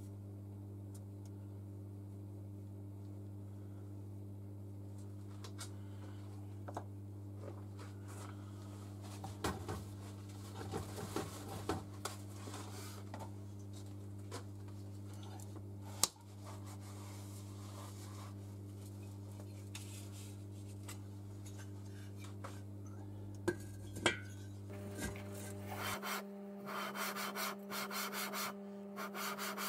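Engine parts handled on a workbench, with scattered light clicks and knocks over a steady electrical hum. Near the end, rhythmic gritty rubbing starts, about two strokes a second: the cast-iron cylinder head being lapped back and forth against the barrel with fine grinding paste.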